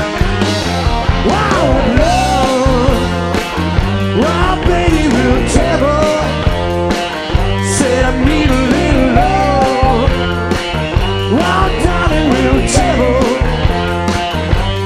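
Rock band playing live: drums and bass under a lead line that slides and bends in pitch.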